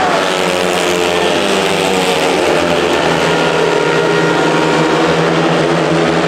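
Speedway bikes' 500cc single-cylinder engines running at race speed on the track, their pitch drifting up and down with no break.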